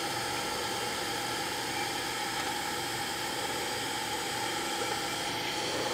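TIG welding arc on titanium tubing under argon shielding, run with no pulse: a steady, even hiss.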